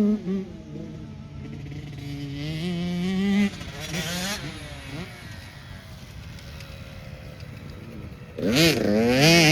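Youth motocross bikes revving on a dirt track. A fainter bike climbs in pitch through the first few seconds. Near the end a bike comes up close and loud, its engine rising and falling as the rider works the throttle.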